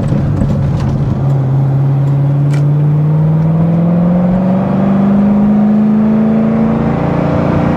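Corvette Z06's 7.0-litre LS7 V8 running under power, its note climbing slowly and steadily in pitch over several seconds as revs build, then levelling off near the end.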